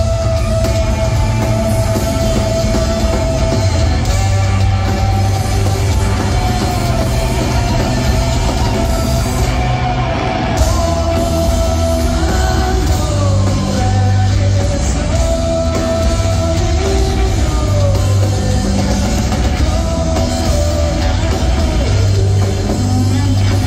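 Live rock band playing, led by electric guitar holding long notes that bend and slide in pitch over bass and drums, recorded from the crowd on a phone.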